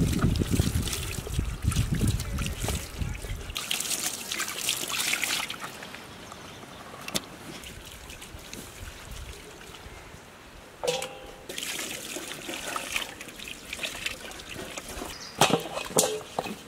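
Water poured from a steel pot and splashing over raw whole chickens as they are rinsed by hand, in several separate pours.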